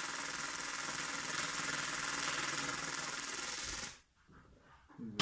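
Argon (TIG) welding arc on a scooter's thin metal variator cover: a steady harsh hiss that cuts off abruptly about four seconds in as the arc is stopped.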